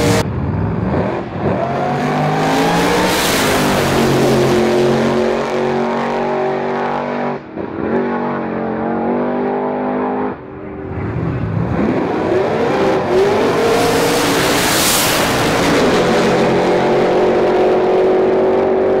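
High-powered drag racing car engines at full throttle on launches down the strip, the engine note climbing sharply soon after the start and again about eleven seconds in. The sound breaks off abruptly twice as one run cuts to another.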